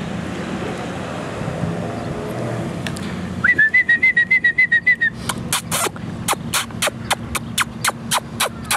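A short high trill of rapid notes about halfway through. Then a steady run of sharp clicks, about four a second, as a small dog wearing a plastic cone collar moves about on a concrete sidewalk.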